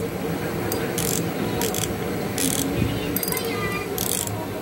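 Ryobi Smap Mini 1000 spinning reel's mechanism being worked by hand as it is opened up, giving short rasping clicks about every half-second to second.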